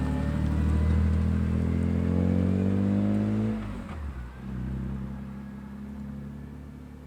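BMW S54 3.2-litre straight-six in an E36, freshly rebuilt, with its revs falling steadily for about three and a half seconds. The note then drops away suddenly and runs on at lower revs, growing fainter.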